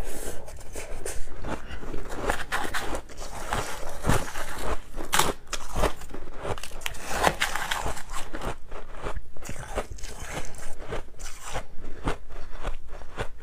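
White ice being bitten and chewed, a dense, irregular run of crisp crunches.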